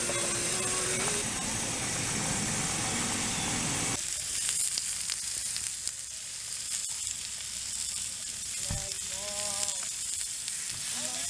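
Pork belly sizzling as it grills, first on a portable camp grill pan, then in a foil tray over a campfire grate from about four seconds in. Scattered light clicks of metal tongs sound as the slabs are turned.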